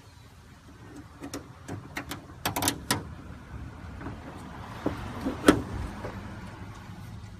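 Irregular sharp clicks and knocks of hand tools and hardware being handled: a quick cluster between one and three seconds in, and one louder knock about five and a half seconds in.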